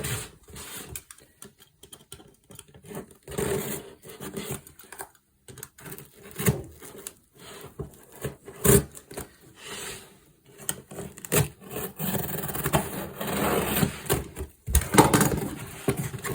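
A cardboard box being opened by hand: irregular scraping and rubbing of cardboard with scattered clicks and knocks, one sharp knock near the middle and busier, louder scraping near the end.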